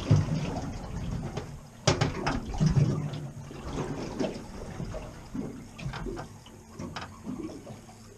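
Water sloshing and slapping against a small boat's hull as it rocks at sea, in uneven surges, with a few sharp knocks on the boat.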